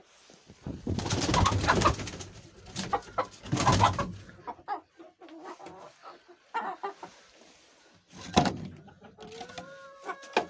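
Chickens calling with low crooning and clucking sounds, broken by a few loud bursts of noise; near the end one bird gives a long, drawn-out call.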